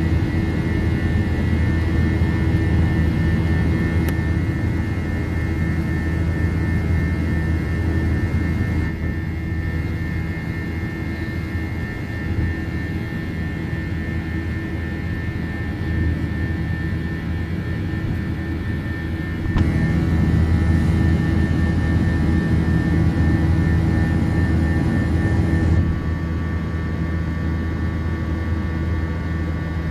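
Cabin noise of an Airbus A321 climbing after takeoff, heard from a window seat beside the engine: a steady jet engine drone with a strong low hum and a thin high whine. It gets louder for about six seconds some two-thirds of the way in, then settles back.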